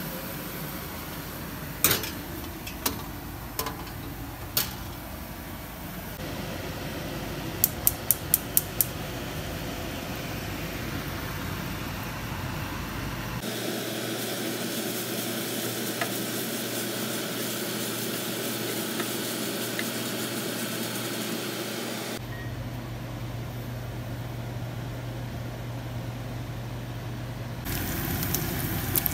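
Food frying in a pan with a steady sizzle, broken by a few sharp clinks of utensils or cookware and a quick run of five clicks about eight seconds in. The sizzle changes in character abruptly several times.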